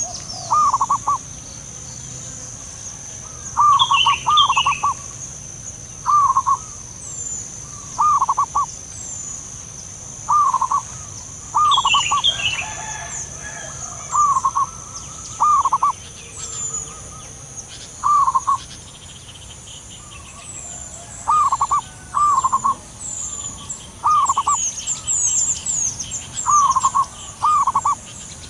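Zebra doves calling back and forth, each call a short stuttering burst of soft trilled coos, repeated every second or two. A steady high-pitched buzz runs behind them, with faint chirps from other small birds.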